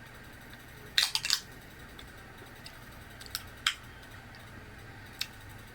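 A drink container, the cold apple soda, being handled and opened: a quick cluster of sharp cracks and clicks about a second in, then a few single clicks.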